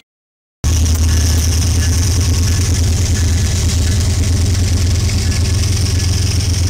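Diesel-electric freight locomotives passing at close range: a steady, loud low engine drone with a steady high hiss above it. The sound cuts out completely for about half a second at the start, then returns.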